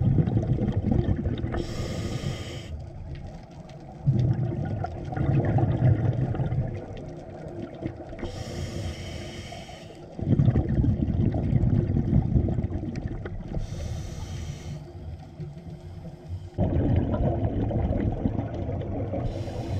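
A scuba diver breathing through a regulator underwater. Each breath is a short hiss of inhalation through the demand valve, followed by a longer, louder bubbling as the exhaled air vents out. The cycle repeats about every six seconds, over about four breaths.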